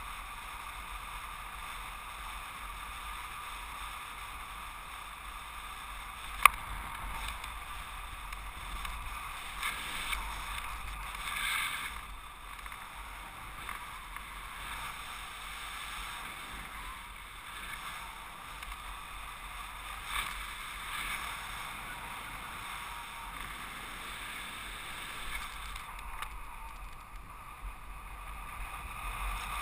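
Steady rush of airflow over the camera during paragliding flight, swelling a little now and then, with one sharp click about six seconds in.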